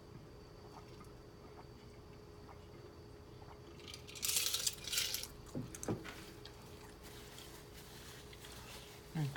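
Drinking sounds at the end of a meal: about four seconds in, a loud noisy slurp from a drink lasting a second or so, then two quick gulps that fall in pitch, and one short low sound near the end.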